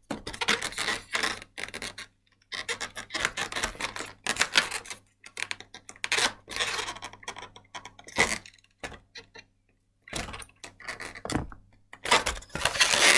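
260Q latex modelling balloon being twisted and worked by hand, the rubber squeaking and rubbing in short irregular spells with brief pauses.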